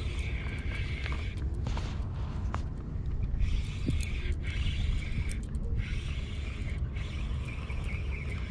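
Spinning reel being cranked against a fish on a bent rod, its gears turning in spells with a few sharp clicks, over heavy wind rumble on the microphone.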